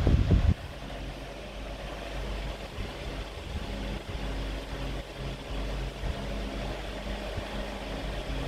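Steady low mechanical hum of a running machine, with several even droning tones, and a few low knocks in the first half second.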